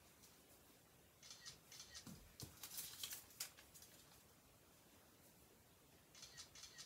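Faint crinkling of foil crisp-packet fish cut-outs being nudged across paper, in a few short clusters, with a soft low knock a little over two seconds in.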